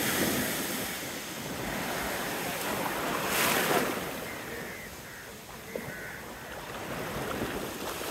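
Sea surf washing on a beach, with one louder wave breaking about three and a half seconds in.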